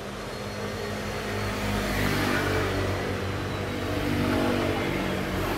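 A motor vehicle's engine running as it passes on the road, growing louder from about two seconds in.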